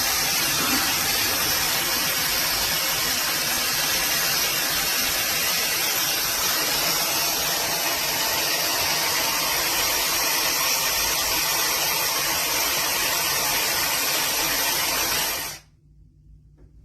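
webeauty 8-in-1 hot air styler with its high-speed 110,000 RPM motor running, blowing a steady strong rush of hot air. It is switched off about fifteen and a half seconds in, leaving only a few faint handling clicks.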